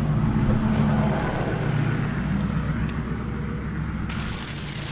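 A motor vehicle passing by, its low engine hum swelling in the first second and then slowly fading.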